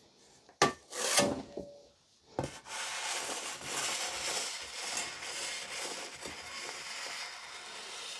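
A couple of knocks, then a cake scraper rubbing steadily over buttercream as the cake is smoothed flat.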